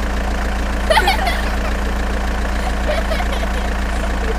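Small engine running steadily at idle with a constant low drone. A short pitched call cuts in about a second in.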